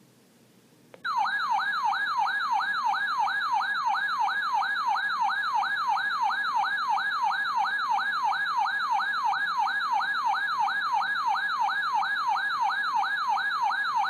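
Weather radio receiver's electronic alert siren, signalling an incoming warning: a falling sweep repeated about two and a half times a second, starting suddenly about a second in and cutting off just after the end.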